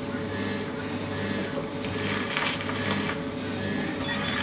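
Milk vending machine dispensing fresh milk into a paper cup: its pump runs with a steady low hum that pulses gently, under the hiss of the milk stream pouring.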